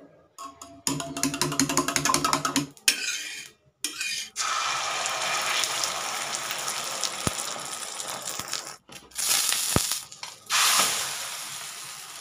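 A spoon beating eggs in a steel cup, a fast run of clinks against the metal. After that, beaten egg sizzling as it fries into an omelette on a hot flat griddle, the hiss breaking off and starting again several times.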